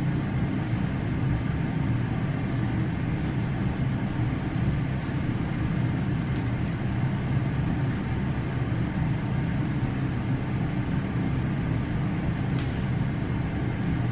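A steady low hum that stays at an even level throughout.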